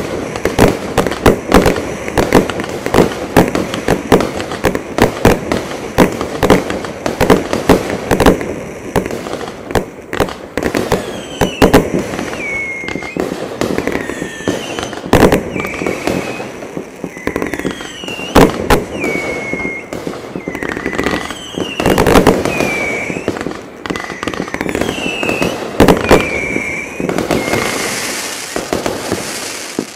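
Consumer fireworks cakes firing a rapid run of shots and bursting bangs. From about eleven seconds in, many shots carry a whistle that falls in pitch, about one a second, and near the end a hissing crackle rises before the barrage dies away.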